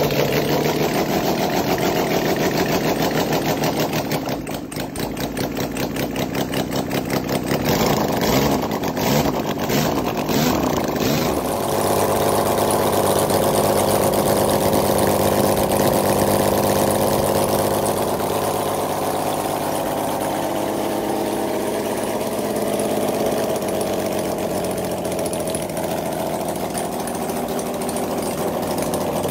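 Kawasaki Z1-based 1396cc six-cylinder engine with a 120-degree crank for even firing, running on the bench with no exhaust headers. It catches from a kick start with no choke on, dips briefly about four seconds in, and rises and falls in speed a few times around eight to eleven seconds. It then settles into a steady idle.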